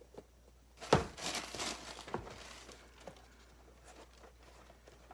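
A sharp knock about a second in, then tissue paper crinkling for a second or two as it is pulled out from inside a sneaker, with fainter rustling after.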